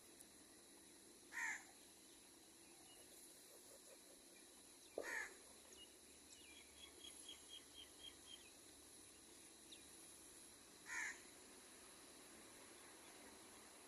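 Crow cawing: three short single caws spaced several seconds apart. A quick series of faint, high ticking chirps comes between the second and third caw.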